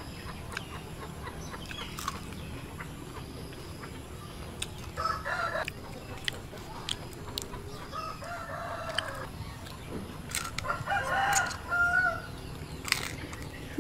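Rooster crowing about three times, the last call the loudest, with a few sharp clicks in between.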